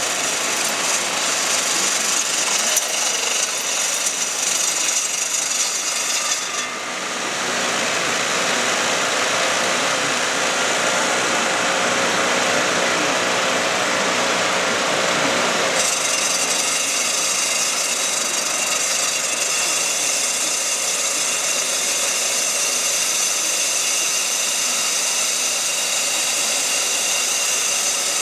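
Concrete core drill running, with a wet vacuum sucking up the drilling slurry through its floor wand: a steady hiss and rush of motor and suction. About seven seconds in, the highest part of the hiss drops away and the sound turns duller for around nine seconds, then the brighter hiss comes back.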